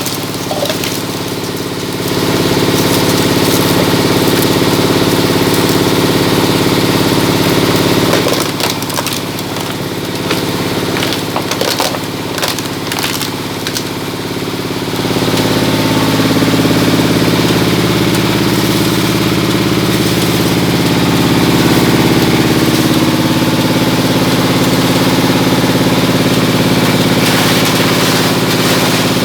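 Scrap shredder machine running with a steady motor drone while it crushes material fed into it. There is a stretch of crunching and cracking around the middle, after which the machine's drone grows louder and heavier under load.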